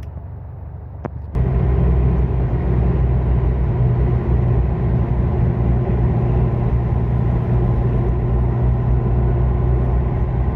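Car engine idling steadily with a low, even hum, which jumps abruptly louder just after a click about a second in.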